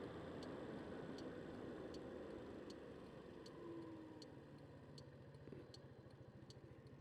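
Faint, even ticking about three times a second, typical of the Yamaha Vino scooter's turn-signal flasher, over the scooter's small engine running low and quiet underneath.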